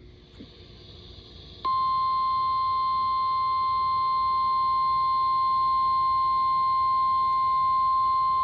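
Faint radio hiss, then under two seconds in an Emergency Alert System attention signal starts abruptly: a single steady tone of about 1050 Hz, the NOAA Weather Radio warning alarm, held at one pitch and level.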